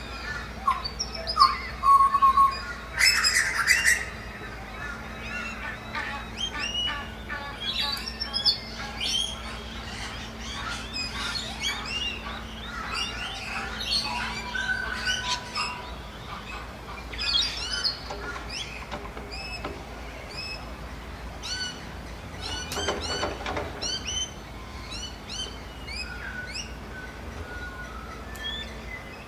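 A chorus of small songbirds chirping and calling over a steady outdoor background. A loud, harsh squawk comes about three seconds in, and a quick series of harsh quacks comes about three-quarters of the way through.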